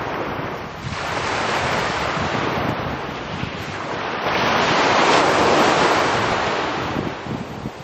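Small sea waves breaking and washing in at the shoreline, with a bigger surge from about four to seven seconds in that eases off near the end. Wind buffets the microphone.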